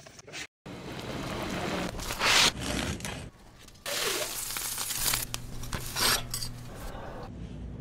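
Close-up food-preparation handling sounds in quick, edited succession: rustling, scraping and crunching, ending with a knife scraping across toasted bread.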